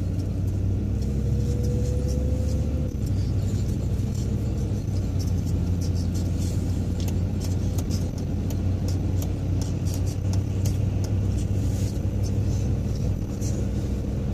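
Car driving on a wet road, heard from inside the cabin: a steady engine and tyre rumble, with a faint rising whine about a second in and light irregular ticks above it.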